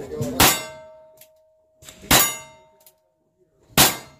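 Three revolver shots fired at steel targets, about a second and a half apart, each followed by a clang of the struck steel plate. After the first hit the plate keeps ringing on one steady tone.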